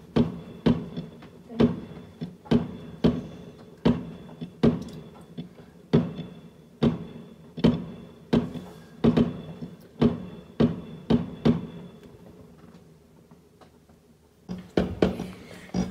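Background music: pitched, plucked-sounding notes on a steady beat, a little over two a second, fading out about twelve seconds in. After a short lull, a busier drum-led passage starts near the end.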